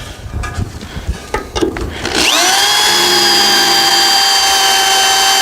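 Light knocks and handling noise, then about two seconds in a power drill spins up with a quick rising whine and runs at a steady pitch, drilling a hole for a locating pin.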